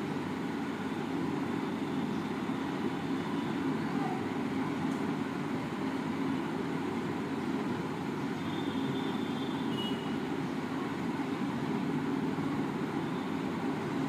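Steady low background rumble, even throughout, with a faint high tone heard briefly about eight to ten seconds in.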